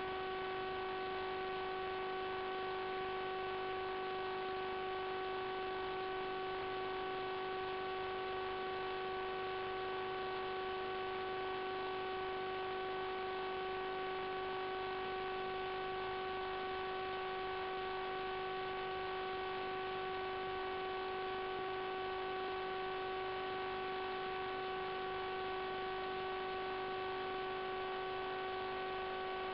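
Steady electrical hum with several constant whining tones over a hiss, unchanging throughout: interference noise on the FPV video link's audio track.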